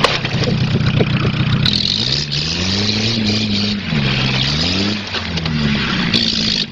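Car engine revving up and down over and over, its pitch rising and falling, as the front half of a cut-down car spins on dirt. A hiss comes and goes over it.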